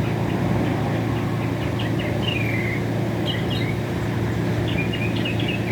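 Northern mockingbird singing a varied run of short, quick notes and a downward slur, over a steady low hum of traffic or an engine.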